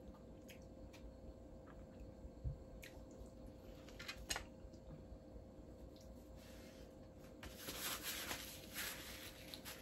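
Paper napkin rustling and crumpling as hands are wiped with it, for about three seconds in the second half. Before that come a few faint clicks of dishes moved on the table.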